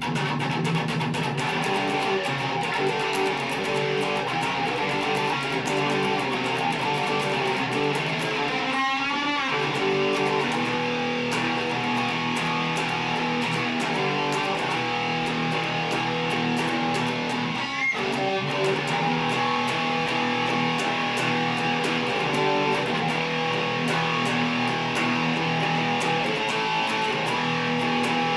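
Mexican-made Fender Stratocaster electric guitar with Lace Sensor pickups, played on the bridge pickup with volume and tone all the way up: a continuous run of notes and strummed chords, with a brief wavering note about nine seconds in.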